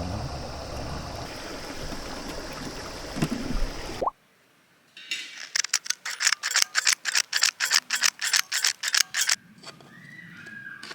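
Rushing mountain-stream water that cuts off abruptly. After a short pause comes a quick run of sharp ratcheting mechanical clicks, about five a second, lasting about four seconds.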